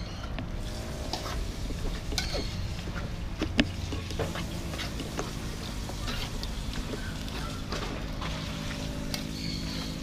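Metal spoon stirring and scraping a thick fish-and-coconut-milk curry mixture in an aluminium pot, with scattered small clinks and one sharper knock about three and a half seconds in.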